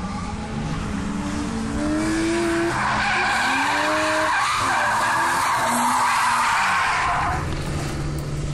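Drift car's engine revving, its pitch climbing, as it enters the corner, then its tyres screeching loudly for about four seconds as the car slides sideways; the screech stops near the end.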